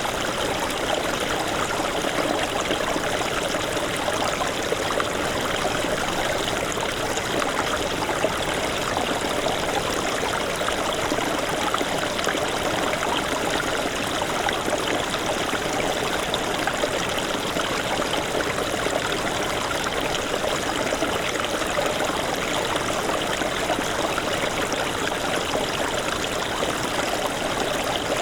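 Small snowmelt stream babbling over rocks, a steady, unbroken flow of water.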